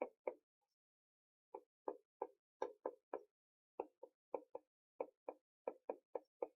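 A run of short, soft key clicks, about three a second, unevenly spaced, with a pause about half a second in: typing on a computer keyboard.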